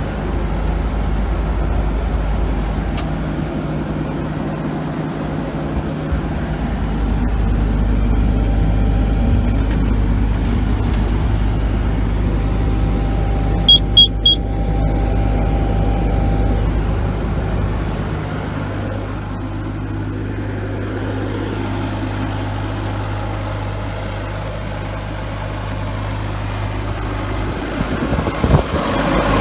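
A Bobcat S185 skid steer's diesel engine runs steadily and gets louder for about ten seconds in the middle. Three quick high beeps sound about halfway through, and a few knocks come near the end.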